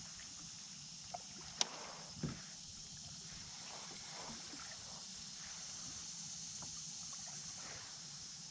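Quiet sounds of a fishing kayak being handled on still water: a couple of sharp clicks and a duller knock a second or two in, then faint small taps. A steady high hiss runs underneath.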